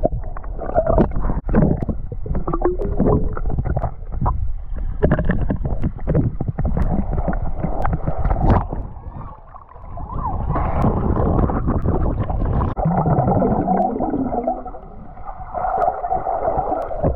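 Muffled underwater sound of lake water sloshing and gurgling around a submerged action camera, with many short clicks and knocks as a swimmer moves along the bottom carrying a rock.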